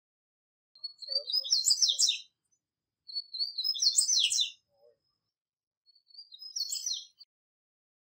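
A wild male double-collared seedeater (papa-capim) singing. It gives three short phrases of fast, high, twittering notes, each about a second and a half long, with about a second's pause between them.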